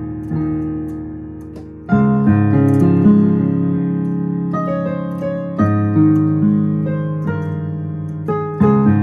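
Piano played slowly, chords struck one after another and left to ring and fade, the left hand in open fifths; a louder chord comes in about two seconds in.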